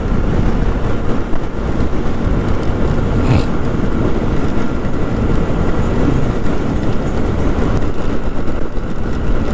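Steady wind rush and engine and road noise on a helmet- or body-mounted action camera while riding a motorcycle at speed in rain, with a brief tap about three seconds in.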